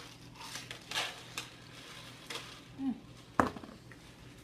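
Cutlery clinking and scraping against a dish while food is eaten: a few light clicks, then one sharp clink about three and a half seconds in.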